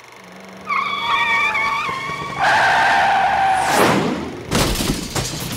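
Intro sound effects: a high, wavering squeal that gets louder and lower about two and a half seconds in and ends in a quick falling sweep, followed near the end by a burst of crashing noise.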